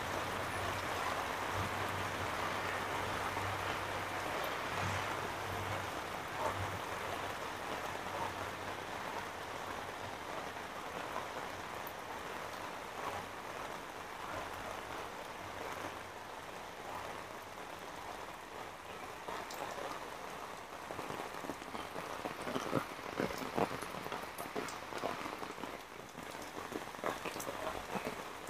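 Heavy tropical rain pouring onto wet pavement and trees as a dense, steady hiss. From about two-thirds of the way through, sharper single drops strike close by.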